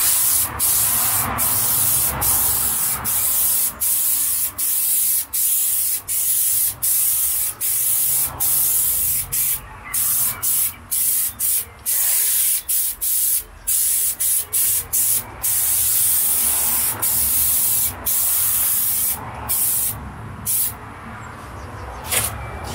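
Aerosol can of spray adhesive hissing in many short bursts, one after another with brief breaks, as the adhesive is sprayed on ready for carpet lining.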